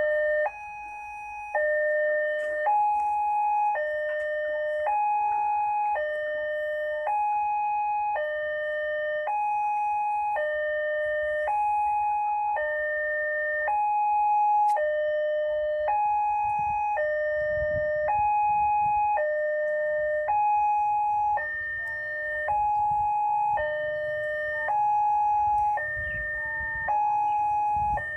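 Railway level-crossing warning signal: an electronic two-tone chime alternating steadily between a high and a low note, each about two-thirds of a second long, warning that a train is approaching as the barrier closes. A low rumble joins in during the second half.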